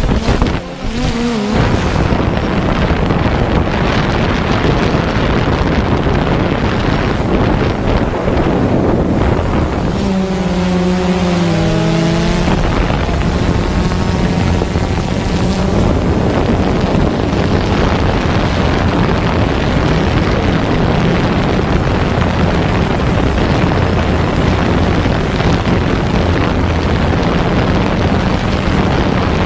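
Drone's electric motors and propellers running hard with wind rushing over the microphone: a loud, steady rush with a low hum. About ten seconds in, the motor pitch wavers up and down for a couple of seconds.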